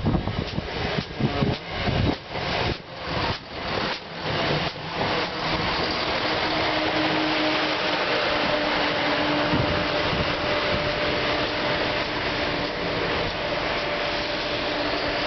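CrossCountry Class 170 Turbostar diesel multiple unit running past, its underfloor diesel engines giving a steady drone with a held tone. Gusts of wind buffet the microphone in uneven bursts over the first few seconds, then the drone settles and runs on evenly.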